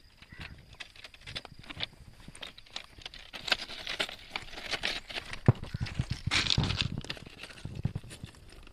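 Crinkling and rustling of a plastic gulal packet being handled and set down on a rail, followed by crunching footsteps on the track's ballast stones, with irregular clicks and a few dull thumps.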